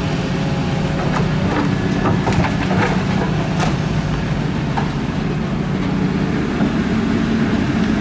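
Diesel engine of a Caterpillar tracked hydraulic excavator running steadily with a low hum. A cluster of short knocks and clanks comes between about one and a half and four seconds in.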